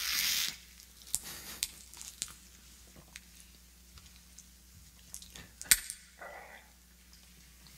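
A quick sip from a small plastic communion cup, then faint crinkling and small clicks of the plastic cup being handled, with one sharp click about two-thirds through.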